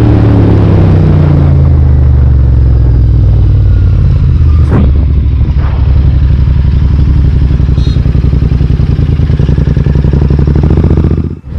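Royal Enfield Interceptor 650's parallel-twin engine running hard at high road speed, heard from the bike: its pitch falls over the first couple of seconds, then it holds a steady drone. Near the end the sound briefly cuts out before picking up again, as when the throttle is shut for a moment.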